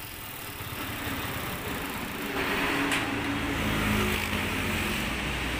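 Honda TMX 125 single-cylinder engine turning over for about five and a half seconds, louder in the middle, then stopping abruptly at the end. It will not keep running because the fuel tank has run dry.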